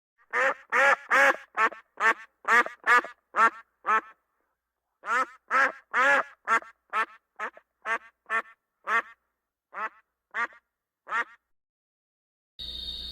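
Duck quacking: a quick run of about ten quacks, a short pause, then about a dozen more that grow fainter and further apart. Near the end a steady insect-like ambience with a high tone cuts in suddenly.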